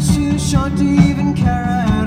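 Rock song with guitar and a drum beat, a voice singing a melody that slides between notes.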